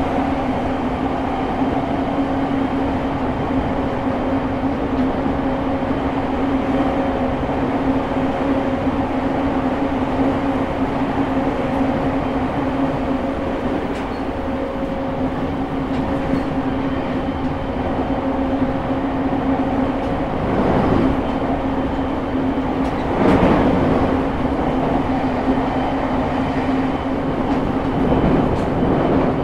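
Running noise inside a JR East E217 series motor car: the Mitsubishi GTO-inverter-driven MT73 traction motors hum at a steady pitch over the rumble of wheels on rail. A few louder rushes of track noise come about two-thirds of the way in and again near the end.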